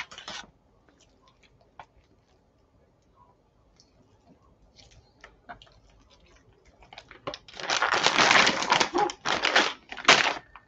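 Plastic vacuum-sealer bags rustling and crinkling as they are handled, with scattered light taps and clicks at first; the crinkling gets loud for a few seconds near the end.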